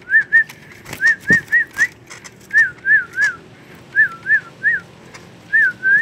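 Clear, high whistled notes in short runs of two to four, each a quick up-and-down glide, with a few sharp clicks between the runs.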